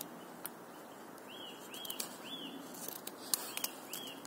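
A Morakniv 106 carving knife shaving a wooden stick, heard as a few short, faint crisp clicks, clustered about three seconds in. Over it a small bird gives several short chirps that rise and fall.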